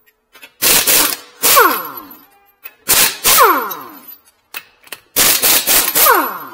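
Impact wrench hammering lug nuts loose, in several short bursts a second or two apart, each ending in a falling whine as the wrench spins the nut off and winds down.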